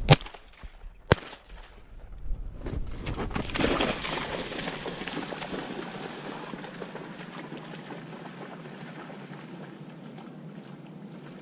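Two shotgun shots about a second apart, then a dog splashing through shallow marsh water: a rushing splash that builds for a couple of seconds and then slowly fades as it moves away.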